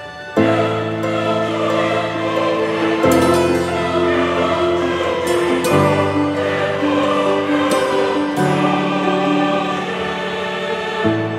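Background music: slow, sustained chords that change every two to three seconds.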